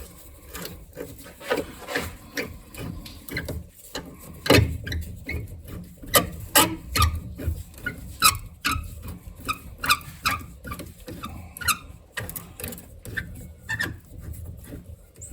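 Screwdriver prying and working a rubber upper radiator hose loose from its neck. It makes irregular scrapes and clicks, with short rubber squeaks now and then.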